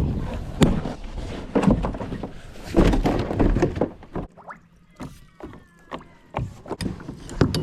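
Kayak on the water: irregular splashing and knocking from paddling and handling gear, loud for about four seconds, then quieter with a few light clicks.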